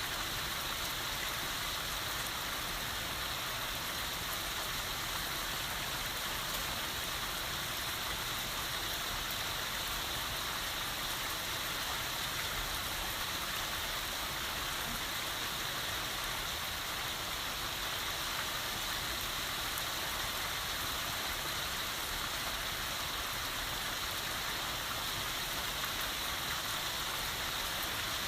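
Rain falling steadily on surfaces, an even, unbroken hiss that neither builds nor fades.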